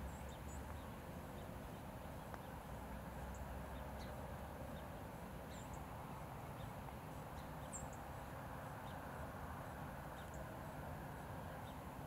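Outdoor ambience: a steady low rumble and hiss, with faint, short high-pitched chirps of small birds scattered every second or two. The crane itself is not calling.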